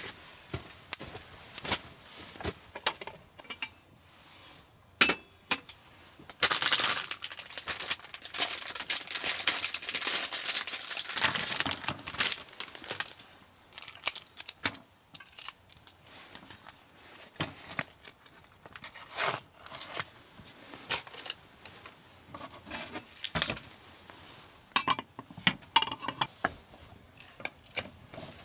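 Rustling and crinkling of material being handled, with a dense stretch of crumpling from about six to twelve seconds in, and scattered clicks and light clinks of camping gear before and after.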